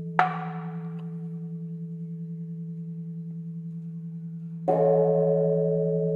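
Big temple bell humming with a slow pulse. About a quarter second in, the wooden board is struck once with a sharp knock, and near the end the bell is struck again and rings out loud. This is the monastery's bell-then-board transition signal, handing over to the next Dharma instrument.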